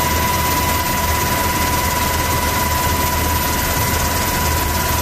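Steady noise of an MH-60 Seahawk helicopter in flight, heard from aboard, with a constant high whine over a low drone.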